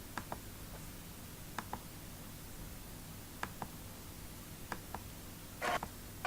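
Computer mouse double-clicking: four quick pairs of clicks about a second and a half apart over faint background hiss, with a short burst of rustling noise near the end.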